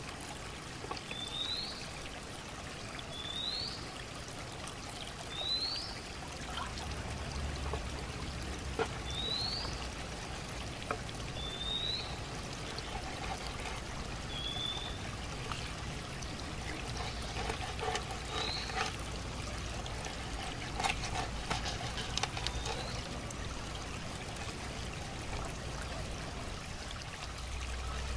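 Knife scraping and tapping on a wooden cutting board as whole fish are cleaned, with a cluster of scraping about two-thirds of the way through, over a steady running-water background. A bird repeats a short rising chirp every couple of seconds through the first half, then calls more sparsely.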